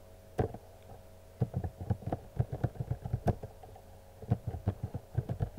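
Computer keyboard keystrokes: a single key press, then from about a second and a half in a run of quick key taps with a short pause partway through, as a new password is typed in twice at a terminal prompt. A faint steady electrical hum lies underneath.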